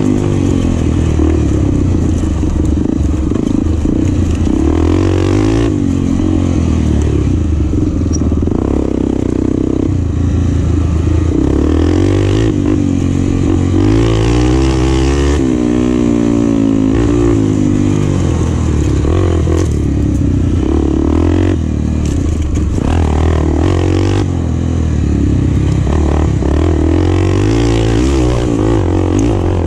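Enduro motorcycle engine revving up and dropping back again and again as it accelerates, changes gear and eases off, with occasional short knocks and rattles.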